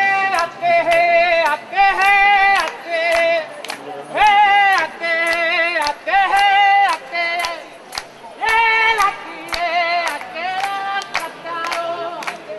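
Music: a voice singing a slow melody of held notes with vibrato, each about half a second to a second long with short breaks, over many sharp percussive clicks.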